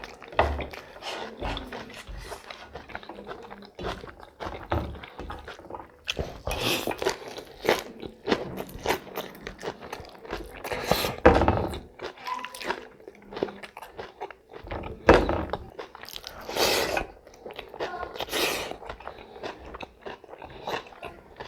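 A person eating close to the microphone: bites, crunching and chewing, with wet mouth sounds. Several louder noisy bursts come from about a third of the way in.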